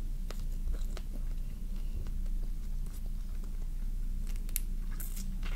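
Wet sucking and chewing sounds as raw lime-cured crab meat is sucked out of the shell by mouth, with a few sharp smacks about four and a half to five seconds in, over a steady low hum.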